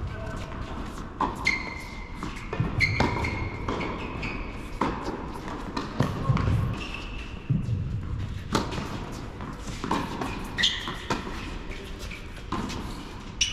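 Tennis balls being struck by racquets and bouncing on an indoor hard court, irregular sharp knocks about every second that echo in a large hall, with a few short high squeaks.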